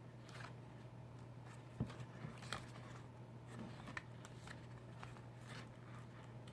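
Pages of a paper art booklet being handled and turned: faint rustles and a few light clicks, the sharpest about two seconds in, over a low steady hum.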